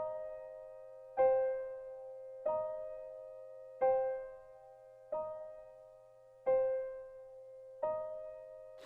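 Slow, gentle keyboard music: a soft chord struck about every second and a half, seven times, each ringing and fading away over a held note.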